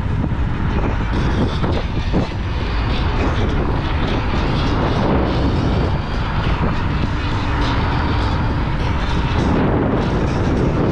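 Riding a Dualtron X2 Up electric scooter: a steady, loud rush of wind buffeting the microphone and road noise, with a faint drone from the running scooter underneath.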